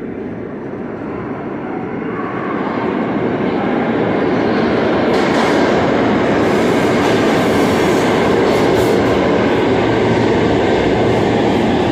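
New York City subway train pulling into an underground station. Its rumble grows louder over the first few seconds as it approaches, then holds steady and loud as the cars roll along the platform.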